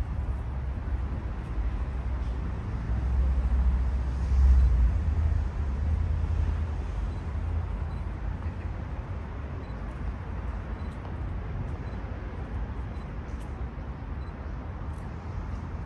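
Wind buffeting the microphone as a low rumble, swelling in a strong gust about four seconds in and then easing back to a steady blow.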